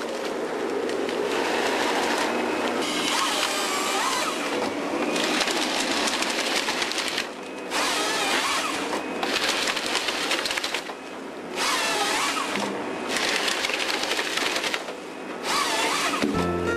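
Forestry harvester with a Lako harvesting head at work, gripping and feeding a tree through the head: loud steady machine noise mixed with crackling of branches and wood. The noise drops out briefly several times.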